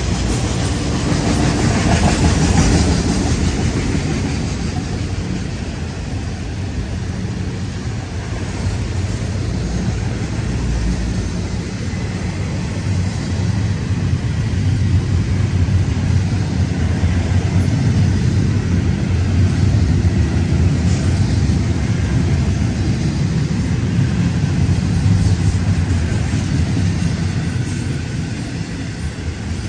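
Freight cars of a Florida East Coast Railway train rolling past, autoracks and then intermodal container cars: a steady low rumble of steel wheels on the rails that swells and eases a little as the cars go by.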